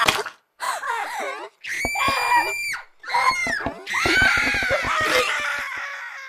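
Several high-pitched cartoon screams in a row: short shrieks, a long held scream about two seconds in, then a longer scream from about four seconds that slowly fades.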